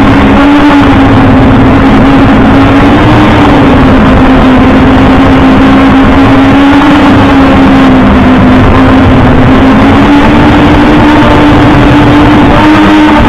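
OVERMAX X-Bee Drone 8.0 quadcopter's motors and propellers buzzing steadily as heard from its onboard camera, the pitch wavering slightly as the motors adjust speed. Loud throughout, with wind buffeting the microphone.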